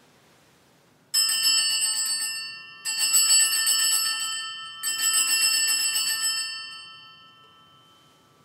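Altar bells (a cluster of small Sanctus bells) shaken in three jangling rings about two seconds apart, each fading out, the last dying away slowly. They mark the elevation of the chalice at the consecration.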